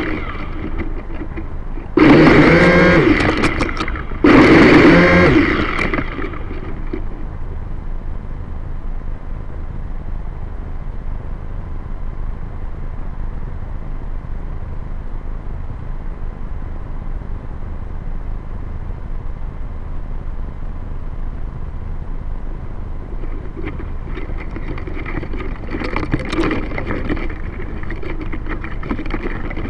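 Quadcopter's electric motors and propellers buzzing in two loud bursts about two and four seconds in, heard from its onboard camera, then a long, steady, quieter hiss, with a fainter motor buzz returning near the end.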